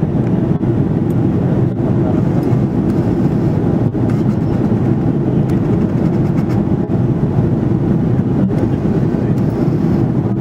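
Steady, deep rumble of engine and airflow noise inside an Airbus A330-300 passenger cabin, with a few momentary dips.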